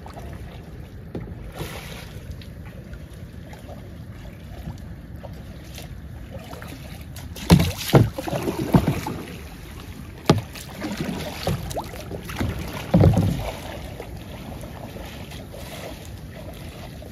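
Kayak paddling: a handful of short, irregular splashes and knocks from the paddles in the water, bunched in the middle. Under them runs a steady low rumble of wind on the microphone.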